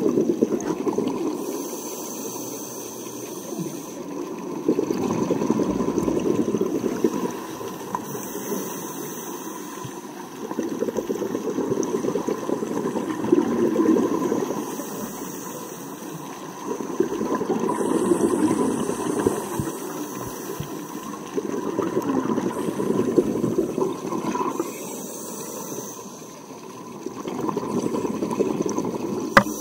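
Scuba diver breathing through a regulator underwater: a bubbling rush of exhaled bubbles swells and fades every four or five seconds.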